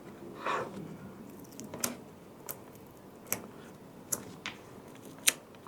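Small hand tools and parts being handled on a drone's circuit board: a short rustle about half a second in as a paper sticker is peeled off, then half a dozen light, irregular clicks and ticks.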